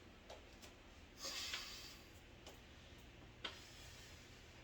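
Mostly quiet room, with a few faint short taps, a clearer click about three and a half seconds in, and a breath out about a second in.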